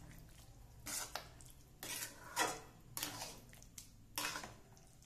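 Metal spoon scraping and stirring thick, creamy pasta in a metal pan, in several short strokes about a second apart.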